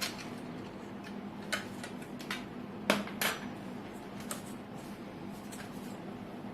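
Hard plastic and metal parts of a round LED ceiling light fitting knocking and clicking as they are handled and fitted together: about seven separate clicks, the loudest about three seconds in. A steady low hum runs underneath.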